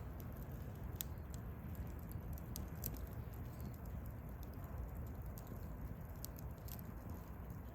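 Wood campfire burning: a low steady rumble of the flames with irregular crackles and pops of the burning wood.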